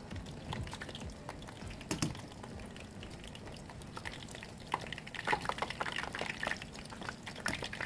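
Battered chicken pieces deep-frying in a pot of hot oil: a steady bubbling sizzle with many sharp crackles, thicker in the second half, and one sharp click about two seconds in.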